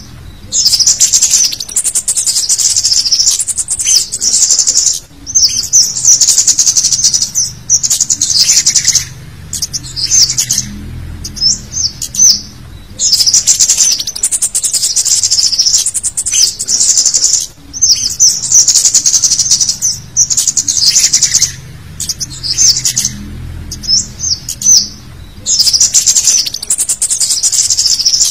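Kemade (cit kemade) bird calling: loud, rapid, high-pitched chittering in bouts of one to two seconds with short breaks between them. This is the busy 'cit keres' lure call of the male kemade, used to draw wild birds in.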